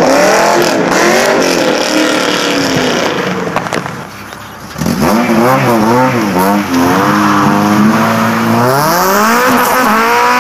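A Chevrolet Camaro's engine accelerating away, its pitch rising and falling through the gears and fading out. About five seconds in, a second car's engine takes over loud: it is blipped up and down several times, held at a steady pitch, then rises as the car pulls away near the end.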